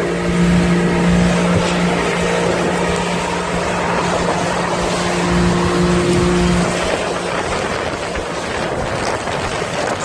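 Outboard motor of a fishing boat running at speed, with a steady hum over a heavy rush of wind and water noise. The motor's hum drops away about seven seconds in while the rushing noise continues.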